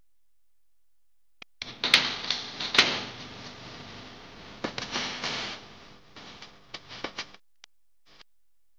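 Pieces of hairtail fish frying in hot oil in a wok: a sizzling hiss with sharp pops and spatters, loudest as the fish goes in and then settling down, with a few last pops near the end.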